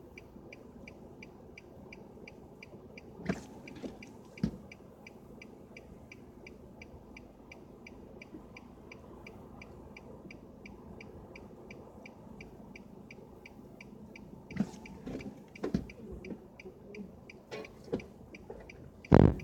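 A light, even ticking about twice a second from a car's dashboard, over a low steady hum. Scattered knocks and bumps come in, with one loud thump near the end.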